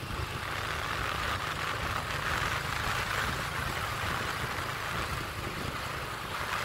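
Steady wind noise rushing over the microphone, with a vehicle engine running low underneath, heard while riding in the open on a moving vehicle.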